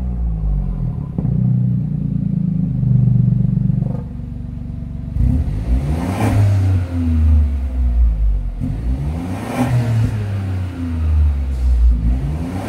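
BMW 318i (F30) 1.5-litre three-cylinder turbo engine running through a stainless-steel active (valved) sports exhaust. It is held at raised revs for about four seconds, then blipped in short rev bursts roughly every three and a half seconds.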